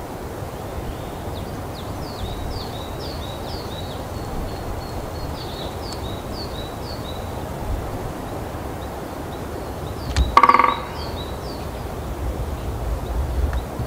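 Great spotted woodpecker drumming on a dry, resonant pine branch: one short, fast roll about ten seconds in, the loudest sound. Before it a small bird repeats high, falling chirps, over a steady low background hum.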